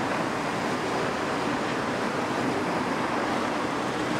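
Six-litre Caterpillar 3056E diesel engine of a Caterpillar M322C wheeled excavator running steadily with an even, unchanging noise.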